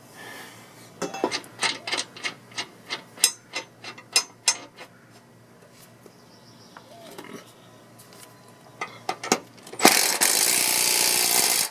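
Metal clinks and knocks as a mower blade is handled and fitted onto the deck spindle, then an impact wrench runs loudly for about two seconds near the end, tightening the blade on.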